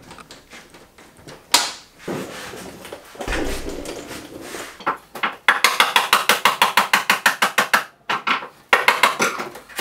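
Hand work on a car body as a tight rubber grommet is pushed and worked into its hole: scattered knocks and rubbing, then a fast even run of clicks, about nine a second for a couple of seconds, and a few more near the end.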